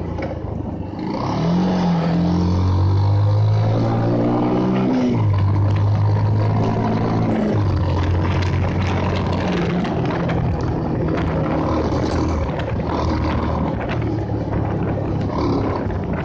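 Bajaj Pulsar's single-cylinder engine pulling while riding. Its pitch climbs as it accelerates and drops sharply about five and seven and a half seconds in, as at gear changes, then holds fairly steady. A rush of wind and road noise runs underneath.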